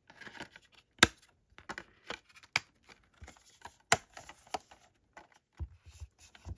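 Metal Blu-ray steelbook cases being handled: a string of sharp clicks and taps, the loudest about a second in and again near four seconds, between softer rustling and sliding.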